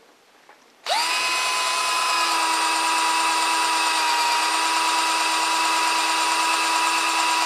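Cordless drill starting about a second in, spinning up quickly to a steady high whine and holding speed as its small bit cuts into a thick piece of cast aluminium, drilling fairly easily.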